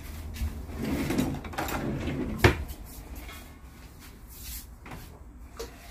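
Kitchen cabinet being opened and shut, with handling noise and one sharp knock about two and a half seconds in, then a few faint rattles.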